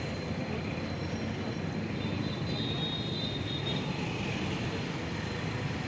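Steady low rumble of road traffic, motorbike and car engines blending together without any single sharp event.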